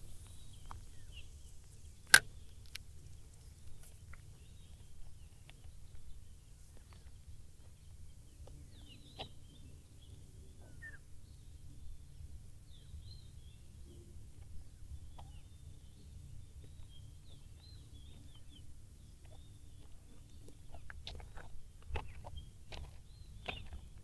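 A spinning rod and reel worked after a cast: a single sharp click about two seconds in, then scattered faint clicks. Faint bird chirps and a steady low rumble sit underneath.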